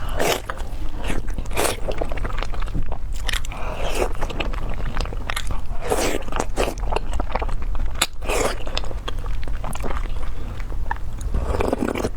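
Close-miked eating sounds of a crab-roe soup dumpling being bitten and chewed: many small wet clicks and smacks, over a steady low hum.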